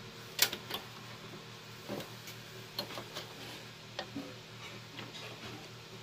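Scattered clicks and light taps of a GeForce GT 710 graphics card and its metal bracket knocking against the steel chassis of an HP Compaq Elite 8300 case as the card is worked toward its slot. The sharpest click comes about half a second in, over a steady low hum.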